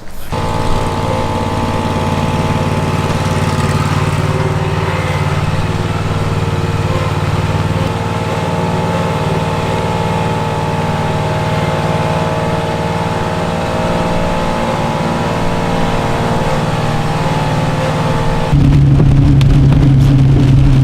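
Bobcat mower engine running steadily at a constant speed. Near the end it changes abruptly to a louder, lower hum.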